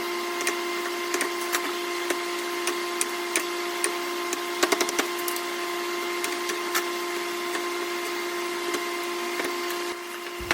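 Hand chisel paring and splitting wood while rounding a tenon, a string of irregular sharp clicks and small cracks. A steady hum runs underneath.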